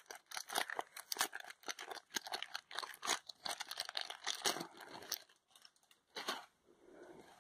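Clear plastic packaging bag crinkling and crackling as it is pulled open and slid off a plush notebook. The crackling is dense for about five seconds, then thins to a last short rustle about six seconds in.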